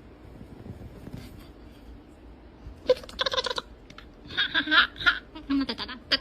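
High-pitched laughter in quick pulsed bursts, starting about three seconds in after a quiet stretch.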